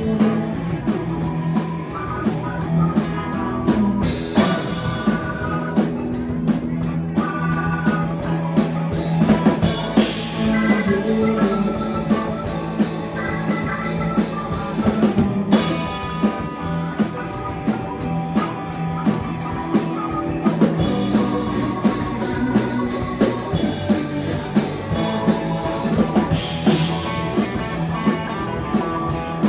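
Live rock band playing an instrumental passage: a drum kit with regular cymbal and snare hits under electric guitar.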